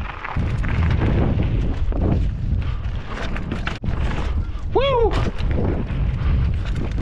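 Mountain bike being ridden over dirt: wind buffets the microphone with a deep rumble, under repeated knocks and rattles from the bike. About five seconds in, a short tone rises and falls in pitch.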